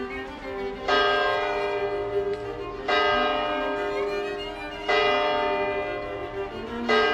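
A church bell tolling: four strokes about two seconds apart, each struck sharply and ringing on as it fades. Violin music plays softly underneath.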